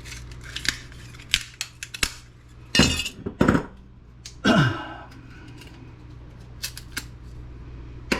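Metal parts of a desktop computer being handled and pulled apart by hand: scattered light clicks and clinks, with louder clanks about three seconds in and a clank with a short scraping ring about four and a half seconds in. A steady low hum runs underneath.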